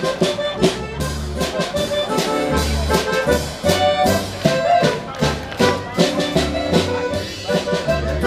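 Live German-style festival band playing: tuba bass notes on a steady beat, with drums and a melody on top.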